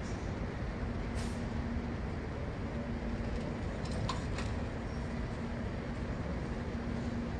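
Steady city-street traffic noise with a low engine hum that comes and goes. Brief high-pitched hisses or squeaks come about a second in and again around four seconds in.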